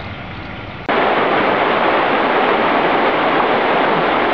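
River rapids: white water rushing, a loud steady noise that cuts in abruptly about a second in, after a quieter outdoor background.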